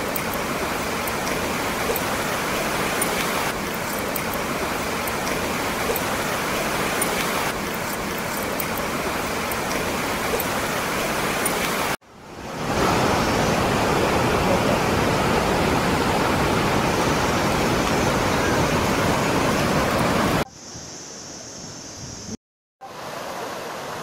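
Steady rush of flowing water from a rocky stream and waterfall, broken by two abrupt cuts: louder for a stretch after the first, and after a short silent gap, quieter.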